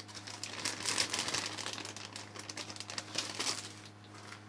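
Plastic packaging crinkling and rustling as it is handled and opened, a dense run of irregular small crackles and clicks.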